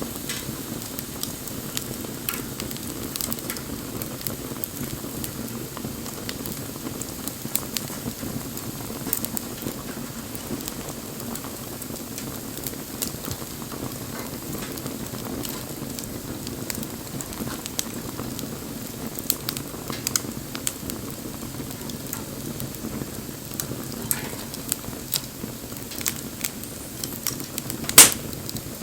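Bonfire burning: a steady low rush of flames with scattered crackles and pops, and one sharp, louder pop near the end.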